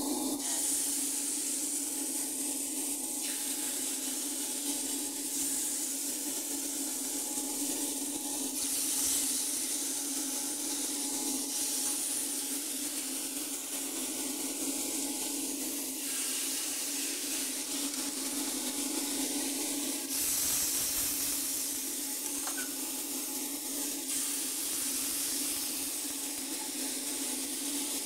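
Marinated chicken pieces sizzling on a hot grill plate: a steady hiss, with a low hum underneath.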